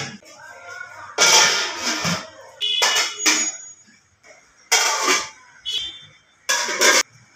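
Aluminium pot lids clattering and ringing as they are set onto the cooking pots and knock against them, in about four separate clangs.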